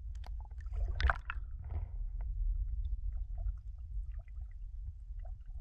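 Low, muffled water rumble picked up by a submerged camera, with a few splashing and gurgling sounds about one to two seconds in as a landing net is moved through the water.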